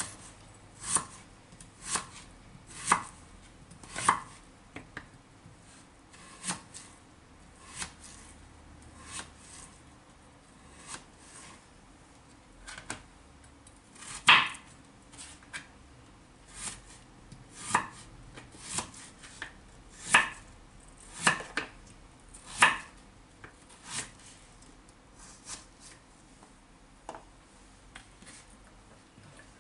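Kitchen knife chopping a peeled potato on a wooden cutting board: single, unhurried cuts, each a sharp knock of the blade against the board, about one a second at an uneven pace, the loudest about halfway through.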